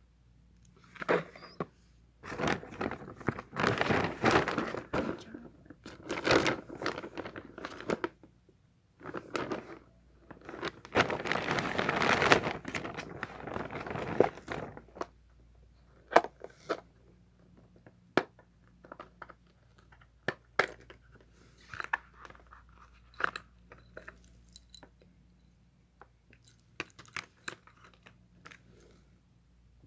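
Packaging of a USB data cable being torn and crinkled open in two long bursts, then scattered light clicks and taps as the contents are handled.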